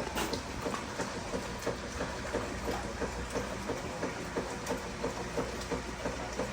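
Whirlpool dishwasher's drain pump running at the start of a cycle with no water in the tub: a steady low hum with a light, even clicking about three times a second.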